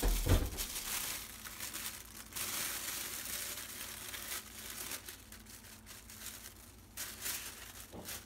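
Thin plastic bag crinkling as it is peeled off a glass bowl of proofed bread dough, with a dull bump right at the start. The crinkling is dense for the first few seconds, and a second short burst comes near the end.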